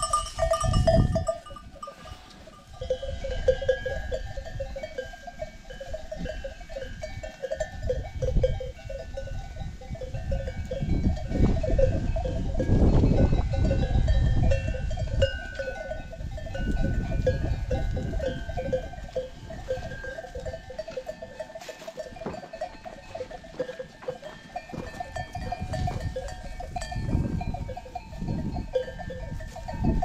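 Bells on a moving flock of sheep and goats clanking and jingling continuously, several bells of different pitches ringing together, over a low gusty rumble.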